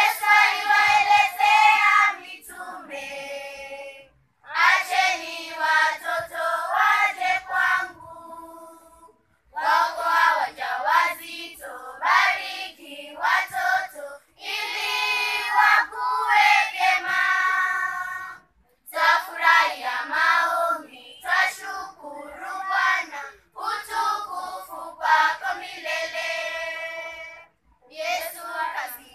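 Children's choir singing together in phrases of a few seconds, with short pauses between phrases.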